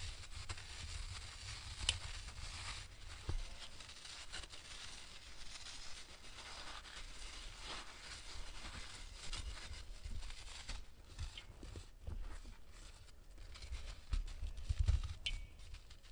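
Dry sand-and-cement block crumbling in bare hands: a gritty crunching and rustle of loose sand, dotted with small irregular cracks. There is a heavier low knock near the end.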